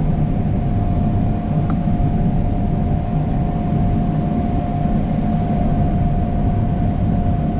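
Combine harvester running steadily while harvesting wheat, heard from inside the cab: a constant low drone with a steady whine on top.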